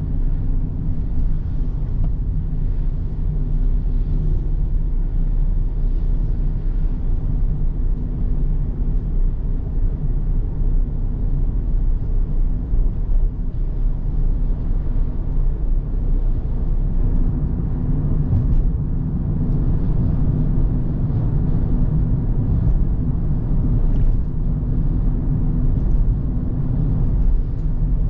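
A car on the move: steady engine hum and low tyre and road rumble that holds an even level throughout.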